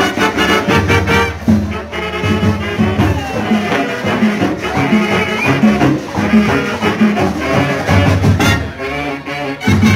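A marching band playing a Latin dance tune, with trumpets and trombones carrying the melody over a repeating bass figure and a steady beat.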